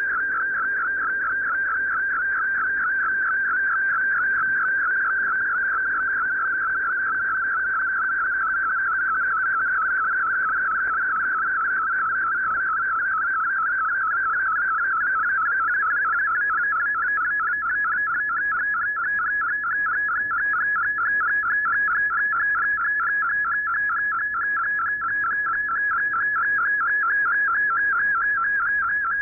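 MFSK32 digital image signal from a shortwave broadcast, heard as the receiver's audio: a steady, rapid warble of stepping tones around 1.5 kHz over faint static.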